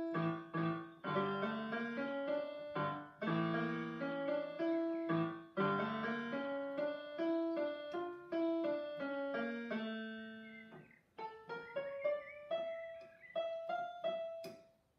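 Portable electronic keyboard played with a piano voice: a melody over chords for most of the time, then a held low note fading away and a few separate notes in the last few seconds.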